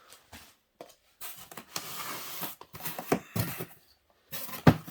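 Rustling and handling of packaging and the paper manual from a monitor box, with a few light knocks and one sharper knock near the end.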